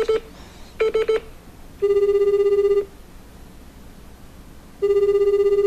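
Telephone ringback tone on an outgoing call, heard over a phone on speaker: a low, fluttering buzz about a second long, sounding twice about two seconds apart. A few short electronic beeps come just before it, at the start.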